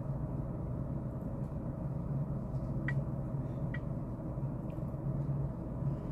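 Steady low hum of room tone, with two faint clinks of tableware as a slice of cake is served onto a plate, about three seconds in.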